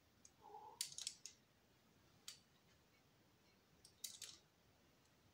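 Near silence broken by a few faint, short clicks and scrapes: a cluster about a second in, a single one at about two seconds, and another cluster around four seconds. A brief faint tone sounds about half a second in.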